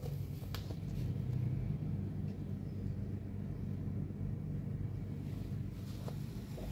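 Steady low rumble of distant city traffic heard from a high-rise balcony, with a couple of faint ticks.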